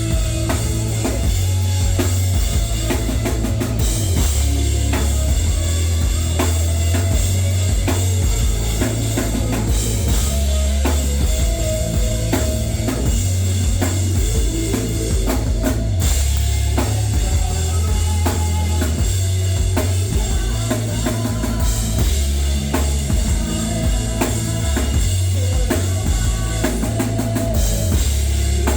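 Live rock band playing, with a drum kit hit hard over a heavy, loud bass line.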